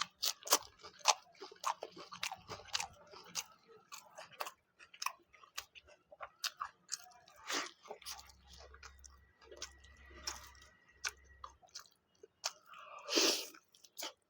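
Close-miked chewing and biting, a person eating butter chicken tandoori and laccha paratha, with many quick, sharp, irregular wet clicks and crunches. The clicks come thickest in the first few seconds, and there is a louder burst of biting and chewing near the end.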